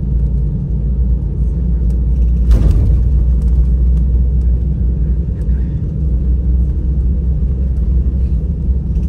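Steady low rumble in the cabin of an Airbus A319 with its IAE V2500 engines running on the ground before takeoff. About two and a half seconds in there is a short rush of noise.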